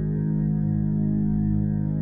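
Background music of slow, steady held notes with no clear beat.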